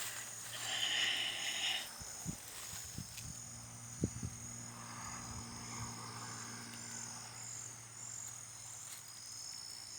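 Night insects such as crickets trilling steadily in high, pulsing tones, with a louder frog-like call in the first two seconds. A few soft knocks fall near the middle.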